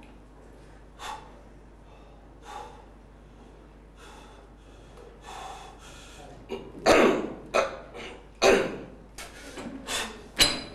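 A weightlifter's short, forceful breaths as he readies himself for a heavy deadlift: a few spaced breaths at first, then a run of louder, quicker ones in the second half as he steps up to and grips the bar.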